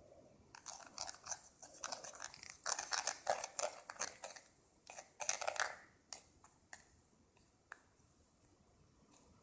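Dish soap slime being squeezed and stretched by hand: a dense run of sticky crackling and popping clicks, then a few separate pops near the end.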